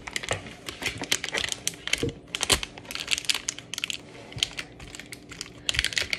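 Plastic packaging crinkling and rustling as it is handled, in quick irregular crackles, with a couple of light knocks about two seconds in.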